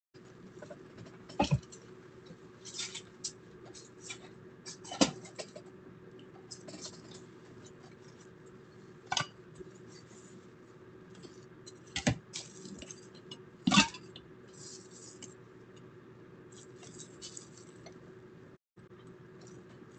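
Rustling and handling noise with about five sharp taps or knocks spaced through, over a steady low hum, as picked up by a home security camera's microphone while a hand strokes a cat on bedding.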